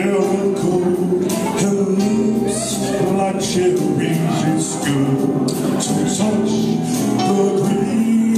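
Live band music: a man singing through a microphone over electronic keyboard and guitar, with a steady percussion beat.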